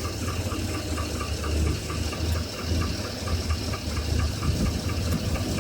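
2007 Chevrolet Avalanche V8 idling with a steady, rapid ticking knock over the engine's low rumble. New lifters have not cured the knock, which the owners trace to the number 5 piston, a possible piston slap.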